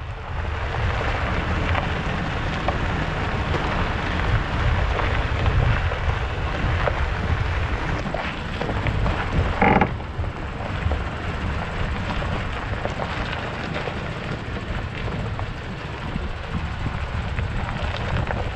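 Truck tyres rolling over a dirt and gravel road, with a steady low rumble and wind buffeting a camera mounted low beside the front wheel. A short squeak comes about halfway through.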